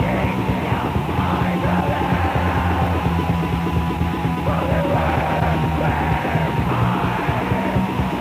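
Raw, lo-fi black metal rehearsal recording: a dense, unbroken wall of distorted band sound with shrieked, yelled vocals over it. It sounds muffled, with almost no treble.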